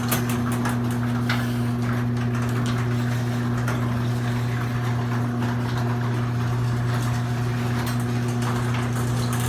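LiftMaster 1/3 hp chain-drive garage door opener running as it closes the door: a steady motor hum over the noise of the chain and the moving door.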